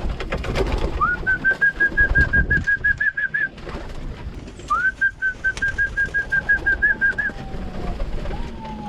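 Pigeons feeding in a loft. A rapid, high chirping trill is heard twice, each run lasting about two and a half seconds, over the birds' steady rustling and pecking.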